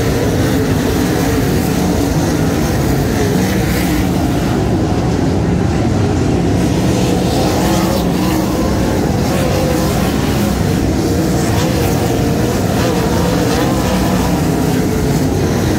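A pack of sprintcar V8 engines running loud and continuous, several engine notes overlapping, their pitch wavering up and down as the cars race around the track.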